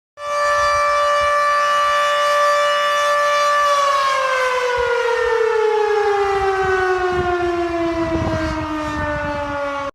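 Outdoor warning siren of the civil defense kind sounding a steady, loud tone, then winding down with its pitch falling slowly over the last six seconds before it cuts off abruptly.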